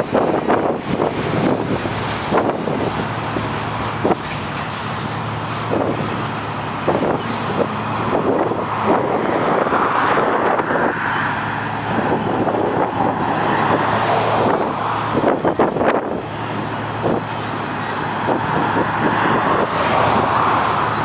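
Long freight train of container cars rolling past, its wheels knocking and clicking in an irregular run, over a steady rumbling noise with a low hum.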